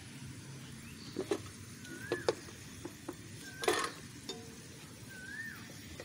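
A bird calls over and over, a short rising-then-falling whistle about every second and a half. Light knocks and a brief clatter come from a steel slotted ladle against an iron wok as fried potato strips are lifted out of the oil.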